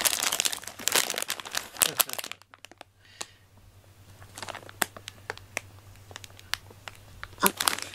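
Plastic candy bag and paper packing crinkling as they are handled in a cardboard box. The crinkling is dense for about the first two seconds, then drops to scattered crackles, with a brief louder rustle near the end.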